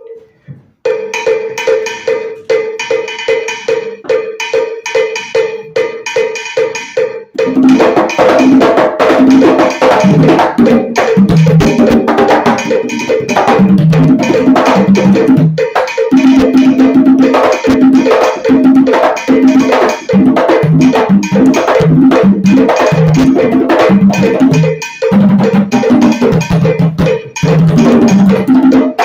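Hand-drum percussion in rumba clave. For about the first seven seconds a wood-block-like clave pattern sounds alone. Then the drum comes in louder, with open tones at several pitches, playing over the clave.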